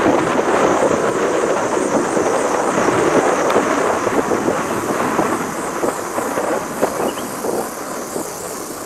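Vehicle running along a road: a loud, steady rumbling noise that slowly fades. A high, pulsing drone sits above it.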